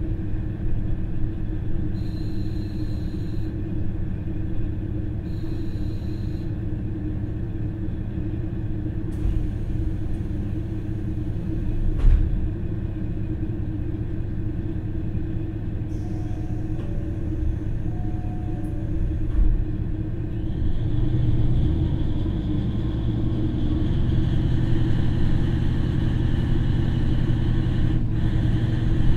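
KiHa 40 diesel railcar's original, non-direct-injection DMF15HSA engine idling at a station stop, heard inside the passenger cabin. About two-thirds of the way through, the engine revs up and grows louder as the railcar pulls away.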